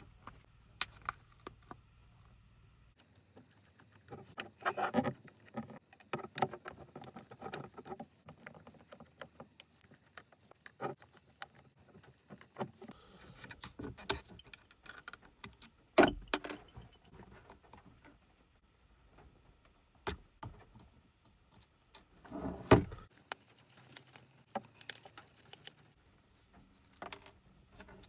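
Irregular clicks, taps and light metallic clinks of small repair tools and phone parts being handled during a phone screen replacement, with two louder knocks about 16 and 23 seconds in.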